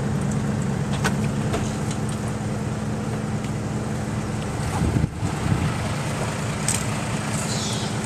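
Tow truck's engine idling steadily, with a few light knocks about a second in and a brief bump a little after halfway.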